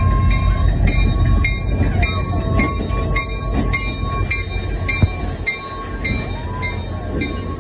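A Union Pacific diesel locomotive rolling slowly past at close range with a deep, steady engine rumble. A bell rings about twice a second throughout, and a short squeal rises and falls about six seconds in.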